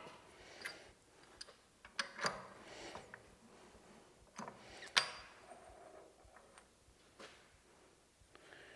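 Scattered light knocks and clicks of metal parts and tools being handled, the strongest about two seconds in and again about five seconds in.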